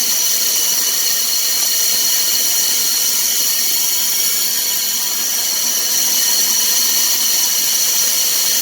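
Grain vacuum with a 5-inch hose sucking up shelled corn: a steady, loud rushing noise with high whining tones, unchanging throughout.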